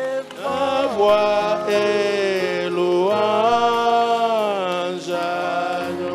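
A voice singing a slow worship song in long held notes that slide up and down between pitches, over a steady background of music.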